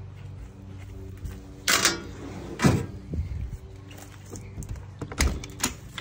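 A few sharp knocks and clatters from a travel trailer's entry door being opened and handled, the two loudest about two and two and a half seconds in, over a steady low hum.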